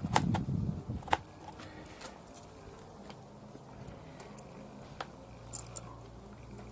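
Small knife chopping garlic cloves on a plastic cutting board: light, scattered clicks of the blade meeting the board at irregular intervals.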